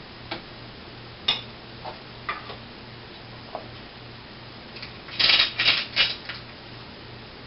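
Plastic parts of a small food processor being handled: scattered light clicks and taps, then a short run of louder clattering about five seconds in as the lid goes on.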